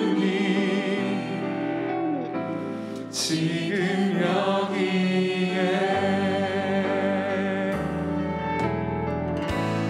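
Live contemporary worship music: a band playing a slow passage with sustained singing voices over bass notes that change every second or two.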